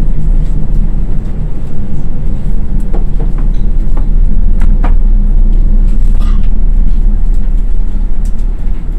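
Cabin noise of a KiHa 47 diesel railcar as it slows into a station: a steady low rumble from the diesel engine and running gear, with a few short light knocks and clicks midway.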